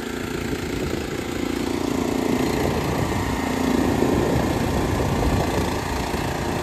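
Small gas engine on a wheel line irrigation mover running steadily, driving the hydraulic pump that powers the wheels' hydraulic motors, with a steady droning tone over the first few seconds. The line is moving, its new hydraulic motors working.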